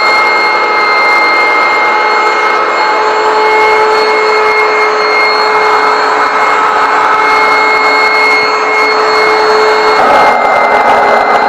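Garry GL100 upright vacuum cleaner running, a steady motor whine with a high tone over a rushing air noise. Its sound turns rougher and noisier about ten seconds in.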